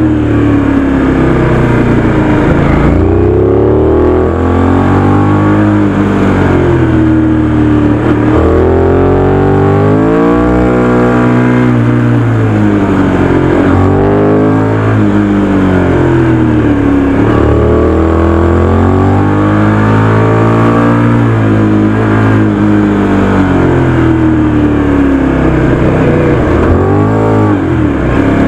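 Aprilia RS 660's parallel-twin engine on its stock exhaust, revving up and falling back over and over as the bike accelerates and backs off along a twisty road.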